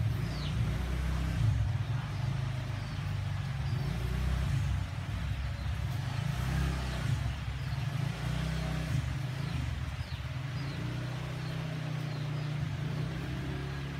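A low, steady engine rumble that rises and falls a little.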